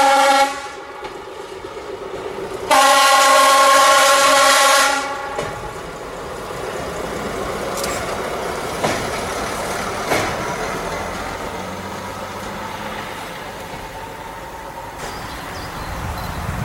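Class 810 diesel railbus sounding its multi-tone horn: one blast cutting off about half a second in, then a second blast of about two seconds. After that the railbus rumbles across the viaduct, with a few sharp clicks and a low engine drone.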